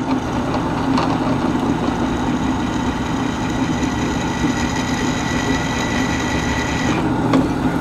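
Drill press running with a 17/64-inch twist bit boring through a small steel armor plate: a steady motor hum, with a thin high whine that stops about seven seconds in.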